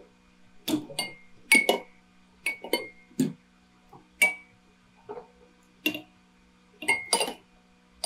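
Many drinking-bird toys tipping forward and knocking against their glasses of water: a dozen or so sharp glassy clinks and taps at irregular intervals, some ringing briefly, over a faint steady hum.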